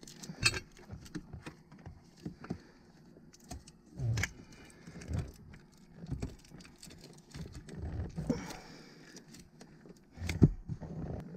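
Scattered clicks, light metal clinks and plastic clunks of hands working at a car battery in its compartment, pressing the battery down and handling the cable and its terminal clamp. The loudest knock comes near the end.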